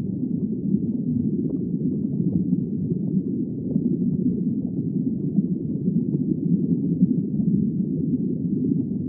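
Underwater recording played as the sound of a seahorse: a steady low rumble flecked with faint scattered clicks.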